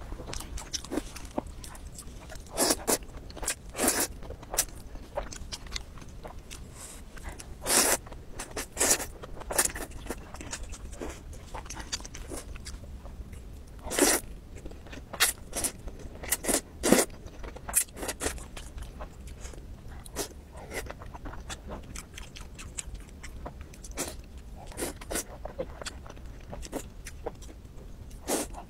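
Close-miked eating sounds: noodles slurped and food bitten and chewed with chopsticks, a string of irregular short wet smacks and crunchy bites. The loudest bursts come about a quarter of the way in and around the middle.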